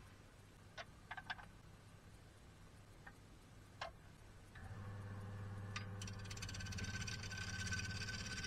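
A few light clicks and knocks as the cherry blank is clamped on the lathe, then a little past halfway the Record Power DML305 wood lathe switches on and runs with a steady motor hum while the blank spins.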